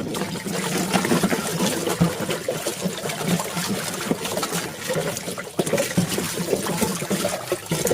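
Water trickling and splashing as a muddy plastic toy car is rinsed clean, with small irregular splashes throughout.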